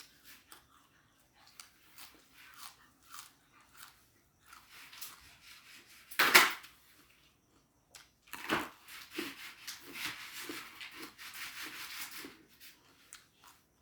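Close-up eating sounds: crunchy raw vegetables being bitten and chewed with sticky rice and chili dip, as a run of scattered crackles with one sharp loud crunch about six seconds in and dense crunching through the second half.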